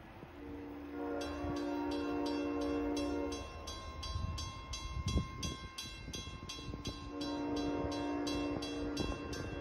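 A freight locomotive's air horn sounds two long chord blasts, one near the start and one in the last few seconds. From about a second in, the grade-crossing bell rings rapidly and steadily as the gates rise, the bell pattern of Pan Am crossings, which ring again while the gates go up after the train.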